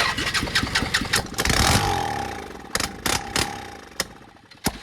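Bajaj Pulsar 200 single-cylinder engine firing up on its electric starter with petrol sprayed straight into the intake, since it has no working carburetor. It runs and revs for about two seconds, then slows with falling pitch and dies away. Several sharp clicks follow near the end.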